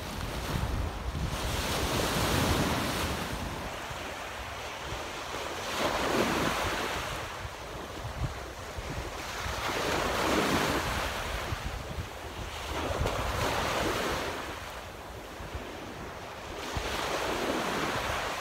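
Waves breaking on a sandy beach, each surge of surf swelling and washing out about every four seconds. Wind rumbles on the microphone near the start and again near the end.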